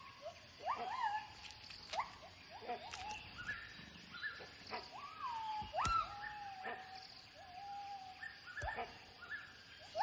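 Gibbons calling: a string of whooping hoots, each sweeping quickly up in pitch and then holding or sliding down to a steady note, repeated every second or so and sometimes overlapping. This is the kind of vocal display gibbons use to defend their territory.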